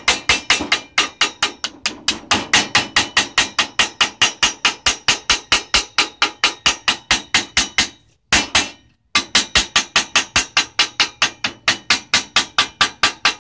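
Rapid, even hammer taps on a metal rod, about five a second, folding over the edge of a steel sheet-metal panel. The tapping stops briefly about eight seconds in, then resumes at the same pace.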